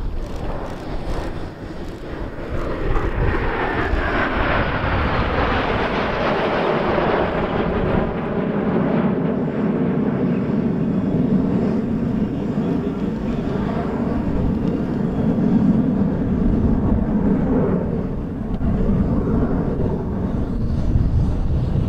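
Four BAE Hawk Mk.51A jet trainers flying over in formation, their Adour turbofan engines giving a whine that falls in pitch over the first few seconds, then settling into a steady jet rumble.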